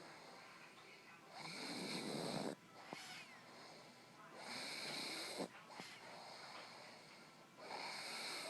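Dog snoring in its sleep: three loud snoring breaths about three seconds apart, with quieter breathing in between.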